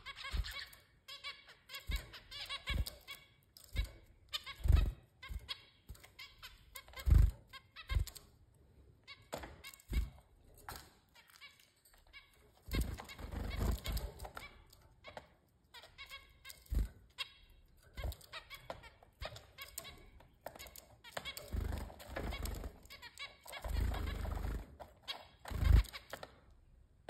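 Zebra finches calling over and over with short nasal beeps, mixed with low thumps and wing flutters as birds fly in and land.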